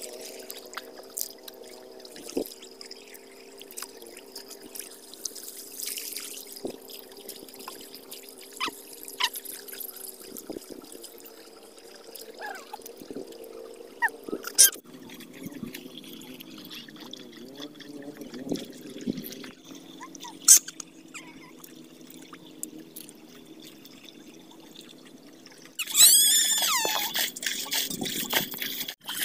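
Faint trickling water with scattered small clicks, then near the end a louder stretch of water being scooped and poured out with a pail from a shallow ditch, with a squeaking sound: bailing out the ditch to catch fish.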